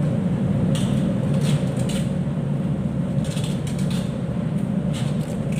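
Duct tape being pulled off the roll in several short tearing strips as it is wound around a mooring-rope strand end, over a steady low hum of ship's machinery.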